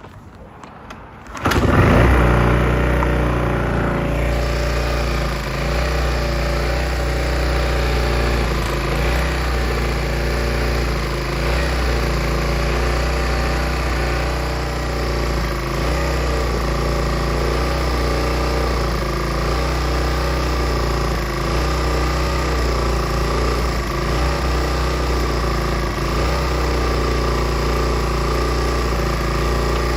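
Shindaiwa EG900 inverter generator's small engine starting about a second and a half in, then running steadily.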